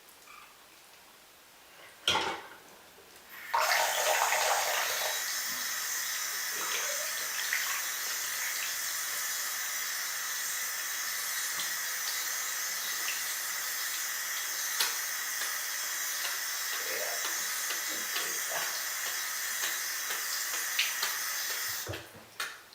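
Water running steadily from a tap into a sink, turned on about three and a half seconds in and shut off near the end. A sharp knock comes about two seconds in.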